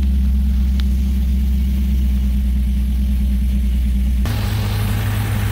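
Cadillac CTS-V's supercharged V8 idling steadily. It is first heard from inside the cabin, then, after a sudden change about four seconds in, from the open engine bay.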